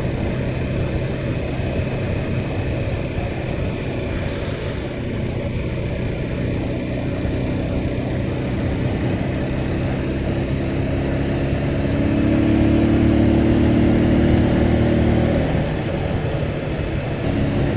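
Motorcycle engine running steadily while riding, heard on a phone's microphone. About twelve seconds in the engine note grows louder and higher for a few seconds, then eases back.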